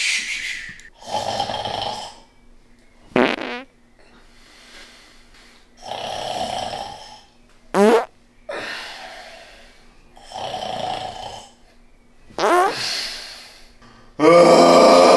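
A person snoring: noisy breaths in and out, with a short sharp snore about every four to five seconds, then a loud, long buzzing snore near the end.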